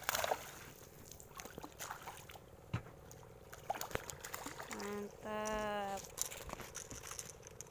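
A hooked fish splashing at the surface as it is reeled to the boat: a sharp splash at the start, then smaller water sounds. About five seconds in, a person calls out wordlessly for about a second.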